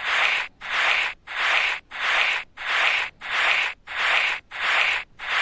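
Sound effect of cotton being rubbed over the scalp: an even rubbing swish repeated about three times every two seconds.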